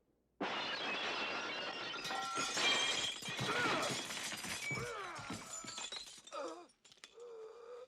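A long crash of breaking, shattering glass lasting about five and a half seconds, with sliding pitched sounds running through it, trailing off near the end.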